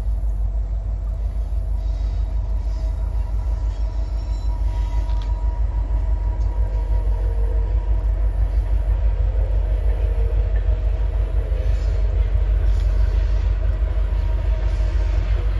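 Train rolling past on the rails: a steady low rumble that builds slowly, with thin whining tones above it.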